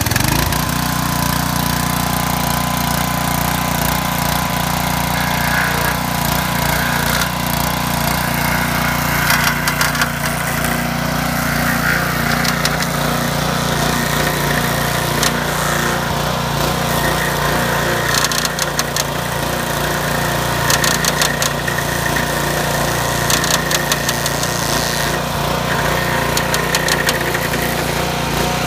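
Crary BearCat walk-behind stump grinder's small gas engine running steadily while the cutter wheel grinds into a stump. Several stretches of rapid clattering come in as the teeth bite into the wood.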